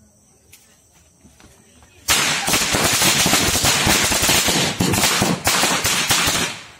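A string of firecrackers going off in rapid succession: a sudden onset about two seconds in, then a dense, unbroken run of sharp bangs that dips briefly near the end.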